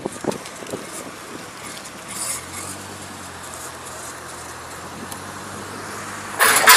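Car on the move with a steady low hum, the noise the owner puts down to a wheel. Near the end comes a short, loud rushing burst.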